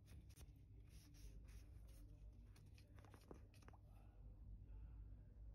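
Near silence, with faint scattered clicks and small handling noises as the filler cap of a chainsaw's chain-oil tank is unscrewed and lifted off.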